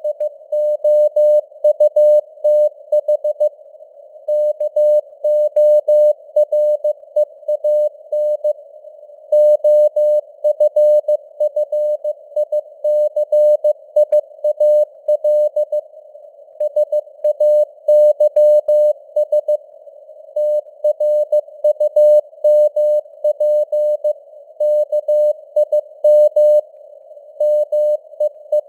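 Morse code at 15 words per minute: a single tone of about 600 Hz keyed on and off in dots and dashes, with short gaps between letters and longer ones between words. Between the elements it sits in a narrow band of simulated radio hiss.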